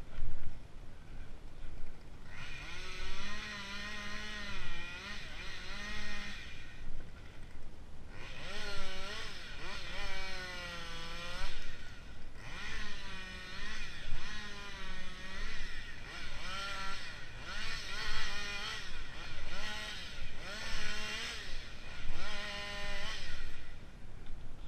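Long handsaw being worked in repeated strokes, the blade ringing with a pitched, wavering tone that bends up and down with each stroke. The strokes come every second or so in the second half.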